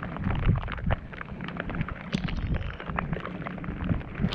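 Wind buffeting the microphone in an uneven low rumble, with scattered small knocks and water slapping against the kayak's hull.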